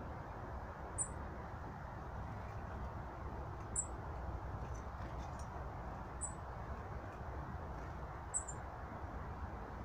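A small bird gives short, very high-pitched chirps, four times a couple of seconds apart, over a steady low rushing background noise.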